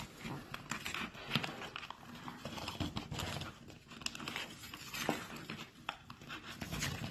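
Scattered clicks, rustling and crinkling of tape and a cardboard tube being handled and taped shut.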